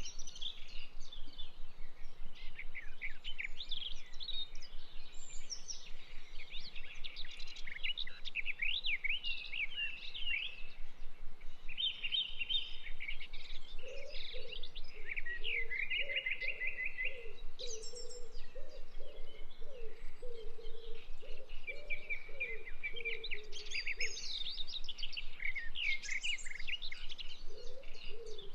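Several birds chirping and singing in quick trills throughout, with a low call repeated over and over about halfway through and again near the end.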